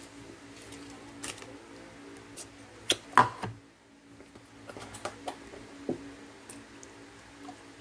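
Clicks and knocks of kitchen things being handled on a stone counter. The loudest is a short clatter about three seconds in, when a plastic measuring jug is set down. A faint steady hum runs underneath.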